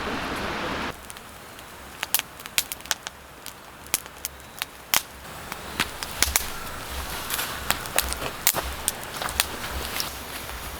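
Wood campfire crackling, with sharp irregular pops and snaps. A steady rushing noise cuts off about a second in.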